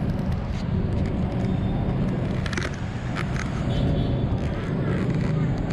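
Steady low rumble of city road traffic, with a few short clicks or knocks near the middle.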